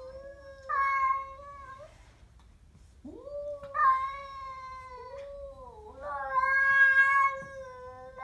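Siamese cat growling and yowling in long, drawn-out cries held on one pitch, swelling louder three times: a hostile warning at a stray cat.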